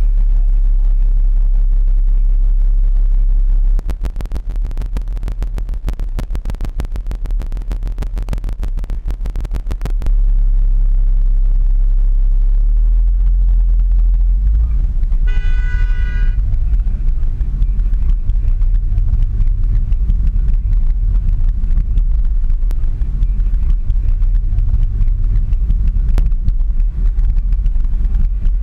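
Car engine and road rumble heard from inside the cabin, the car first waiting in traffic and then pulling away and driving. For about six seconds early on there is a rapid run of clicks, and about halfway through a car horn sounds once, briefly.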